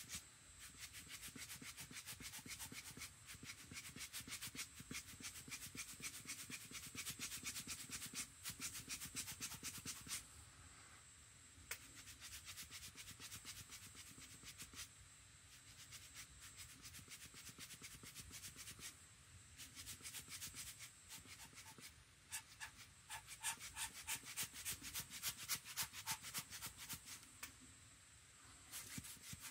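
A small hand tool scrubbing quickly back and forth on watercolour paper: fast, faint scratching strokes in spells, with short pauses about ten seconds in and again near the end.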